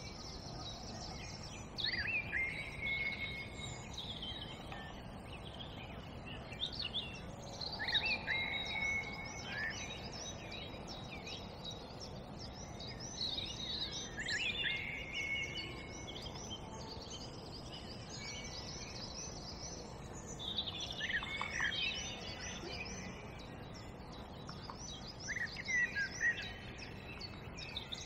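Several songbirds singing at once, with many overlapping phrases of quick chirps and trills that come in clusters every few seconds, over a steady low background noise.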